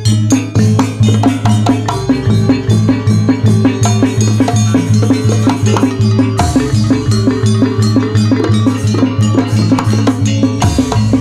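Janger gamelan ensemble playing dance music: metallophones struck in quick ringing patterns over drums, in a fast steady rhythm.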